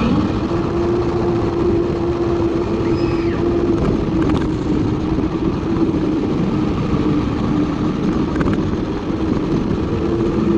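Cheap 1:18-scale RC off-road monster truck, heard from a camera mounted on it while it drives: its electric drive motor and gears whine at a near-steady pitch over the noise of its tyres rolling on rough concrete.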